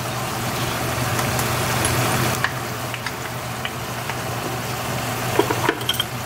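Diced potatoes and minced pork simmering in a sauce in a wok, a steady sizzle over a steady low hum.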